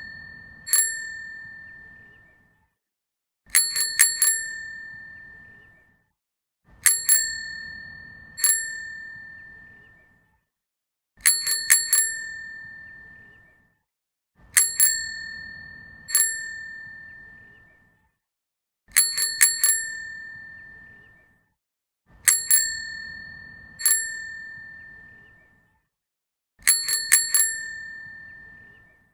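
Bicycle bell rung over and over in a fixed pattern: a quick burst of about three dings, then a single ding about a second and a half later. The cycle repeats every three to four seconds, and each ding rings on and fades away.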